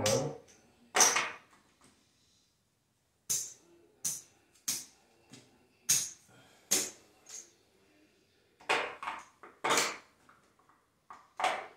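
Casino chips being set down, picked up and stacked on a felt craps table, a string of sharp irregular clicks with short pauses between groups.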